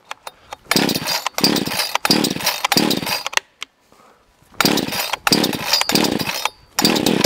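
Cheap gas chainsaw's two-stroke engine being pull-started: repeated rips of the recoil starter cord, each cranking the engine, four in quick succession, a pause of about a second, then a few more. It does not catch yet.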